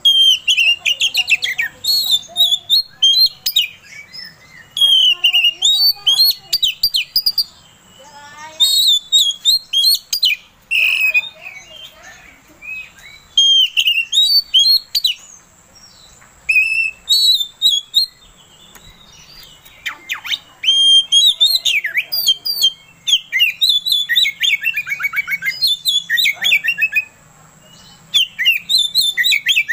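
Oriental magpie-robin (kacer) singing a loud, varied song in bouts: clear whistles, quick trills and rapid chattering notes, with short pauses between phrases.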